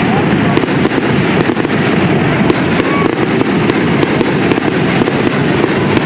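Fireworks display: a dense, continuous barrage of shell bursts and crackle, one blast running into the next with no pause.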